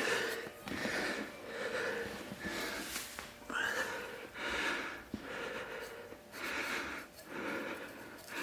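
Sand swishing into or against a metal military ammo box in a run of short, even rushes, about one a second.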